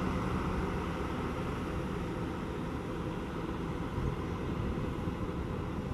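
Diesel engine of a double-decker coach moving off at low speed, a steady low rumble that grows slightly fainter as it draws away.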